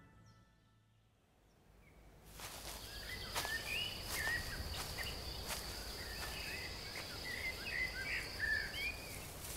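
Woodland ambience of small birds chirping in short, varied calls, with a steady high thin tone and a few faint clicks underneath, starting after about two seconds of near silence.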